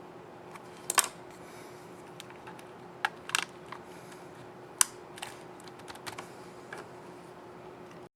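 Scissor-switch keys on an Asus ROG Zephyrus G GA502DV laptop keyboard clicking as they are pressed: a few sharp, irregularly spaced clicks, the loudest about a second in and near the middle, with smaller ones later. A faint steady hum runs underneath.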